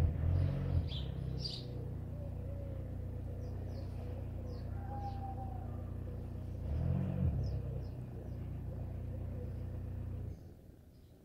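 Kitten purring, a low steady rumble that swells twice and stops suddenly near the end.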